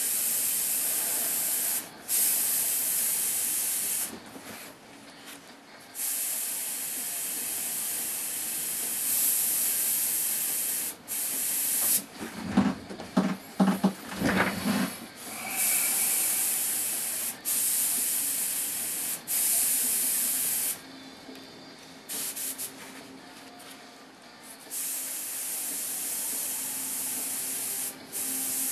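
Airbrush spraying paint: a steady hiss of air and paint from the nozzle, cut off and restarted as the trigger is released and pressed again. Partway through, a few seconds of knocking and clattering come between two spraying passes.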